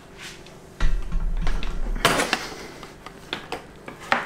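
Handling noise from a plastic water pump and water filter being picked up and moved about: a low thud and rumble about a second in, then a few sharp plastic clicks and knocks.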